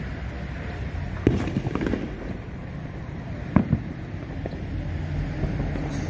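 Fireworks going off: a bang about a second in, a few quicker pops just after, and another sharp bang about three and a half seconds in.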